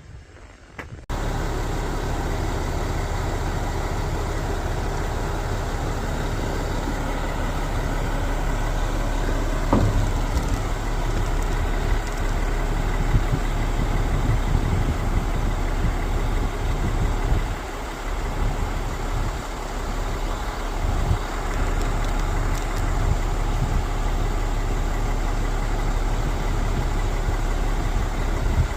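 Diesel engine of a KCP 58-metre concrete pump truck running steadily. It cuts in abruptly about a second in, with a few brief louder knocks along the way.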